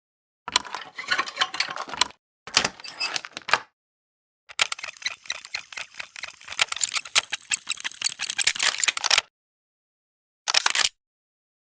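Mechanical gear sounds: dense clicking and rattling in four separate bursts with dead silence between them, the longest lasting about four and a half seconds.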